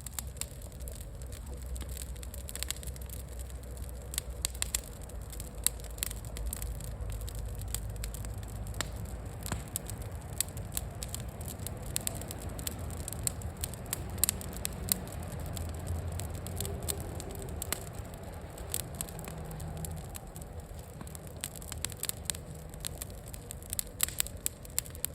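Wood bonfire crackling, with irregular sharp pops over a low, steady rumble.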